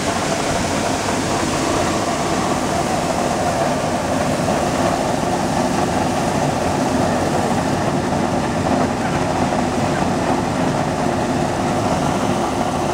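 Wheat flour milling machine of the bran-and-core separating type running: a steady, even mechanical drone from its motors, mill and air-conveying fans.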